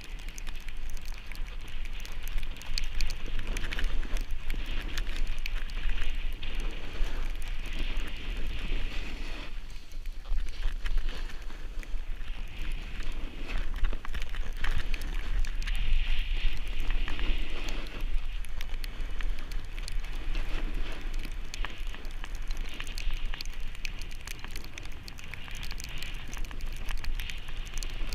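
Snow-sports edges scraping and hissing over packed snow while sliding downhill, with wind buffeting an action camera's microphone as a steady low rumble. The scraping swells and fades every few seconds.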